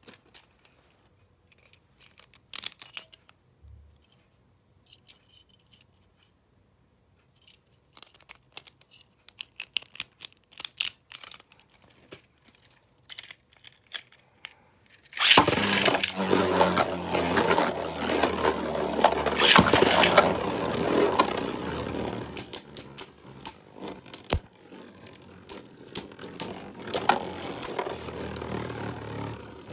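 Light scattered clicks and taps, then about halfway through two Beyblade Burst tops, Glide Ragnarok and Infinite Achilles, are launched into a plastic stadium: a dense rattling whir of the tops spinning across the stadium floor, with sharp clacks as they strike each other and the walls, growing quieter toward the end.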